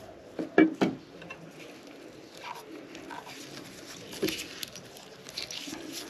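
Two sharp snips a little under a second in as hand cutters cut the copper refrigerant line at a refrigerator's filter dryer, followed by light rustling and small clicks of the tubing and wires being handled.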